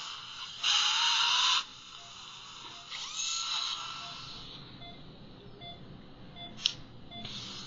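Surgical straight handpiece with a 703 bur cutting into a lower wisdom tooth in two short bursts of about a second each. A few seconds later comes a single sharp crack as the sectioned tooth splits under an elevator.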